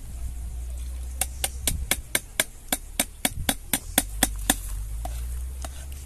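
A quick, even run of about a dozen sharp knocks, roughly four a second, starting about a second in and lasting about three seconds.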